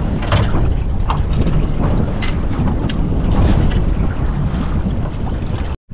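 Wind buffeting the microphone on a small boat at sea, with waves washing and a few short sharp knocks; the sound cuts out for an instant near the end.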